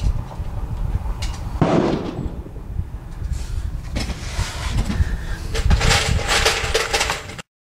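Steady low rumble of wind on the microphone, broken by one loud bang about one and a half seconds in. A gusty rush of noise follows near the end, and the sound cuts off suddenly.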